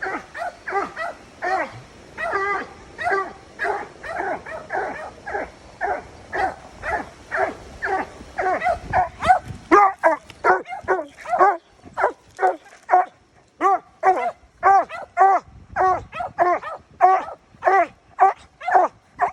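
Coonhound barking treed: a steady string of short, loud barks at about two a second, growing louder and more even about halfway through, as the dog holds a raccoon up a tree.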